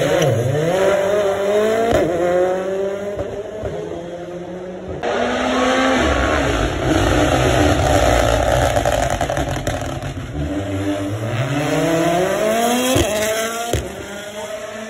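Rally cars passing at racing speed, one and then, about five seconds in, another. Each engine revs up through the gears, its rising note breaking off briefly at every shift.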